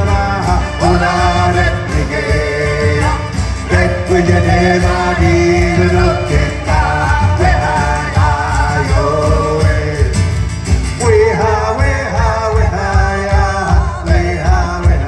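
Live band music: fiddle and acoustic guitar playing over a steady driving beat, with singing.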